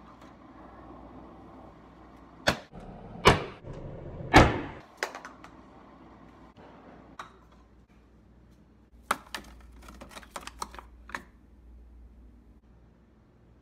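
Plastic clicks and knocks from a Keurig single-serve coffee maker being handled, its lid opened and shut: three loud knocks about two and a half to four and a half seconds in, then a quick run of lighter clicks around nine to eleven seconds in.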